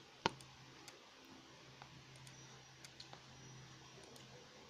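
Quiet clicking from operating a computer while a spreadsheet is scrolled: one sharp click about a quarter second in, then a few faint ticks, over a faint low hum.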